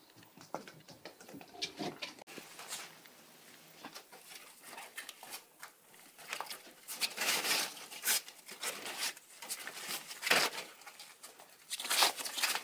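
Shiba Inu puppies scrabbling about, with soft coo-like puppy grunts. From about halfway, the rustle of a fabric play tunnel with a puppy scrambling inside it gets louder and busier.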